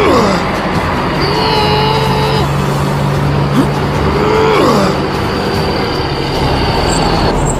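Toy vehicle's engine sound effect, a steady low drone under a rough noisy running sound, with a few short sliding tones on top.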